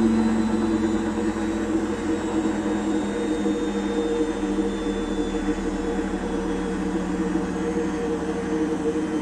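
Washing machine drum slowing down from a 1000 rpm spin, its bad drum bearings giving a loud, steady drone whose pitch falls slowly as it coasts down.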